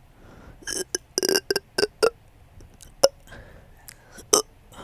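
A person's hiccup-burps: a quick run of about six short, sharp ones in the first two seconds, then two more, spaced about a second apart.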